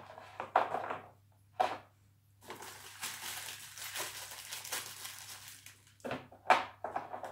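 Crisp ladyfinger biscuits being handled and laid into a plastic container: several short dry scrapes and crunches, with a longer spell of rustling in the middle.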